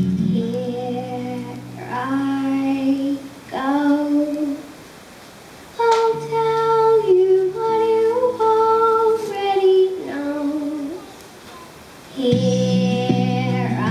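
A young girl singing into a handheld microphone over a PA, in phrases of long held notes with short pauses between them, over sparse backing music. The fuller backing accompaniment comes back in near the end.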